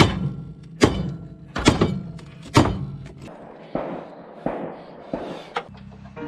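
Background beat music with four heavy, evenly spaced thumps, a little under one a second, in the first three seconds, then lighter hits.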